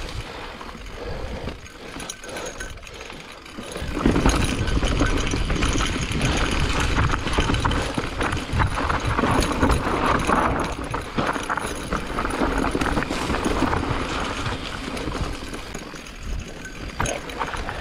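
Specialized Turbo Levo electric mountain bike riding down a rough trail: tyres rolling over dirt and rock, with the chain and frame rattling and knocking over the bumps. Quieter for the first few seconds, then louder from about four seconds in.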